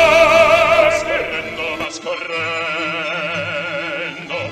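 Operatic bass-baritone voice holding a loud, sustained note with wide vibrato, which ends about a second and a half in. The sound then changes abruptly to a quieter recording of the same voice singing with orchestra accompaniment.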